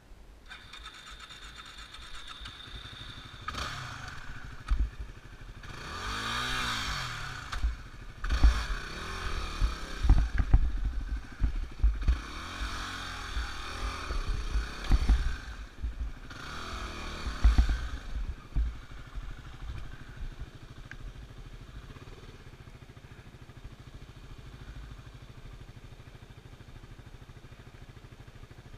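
Yamaha WR250R's single-cylinder four-stroke engine revving up and down in several bursts, with clatter and knocks as the bike crosses rocks and ruts, then running steadily at low revs for roughly the last ten seconds.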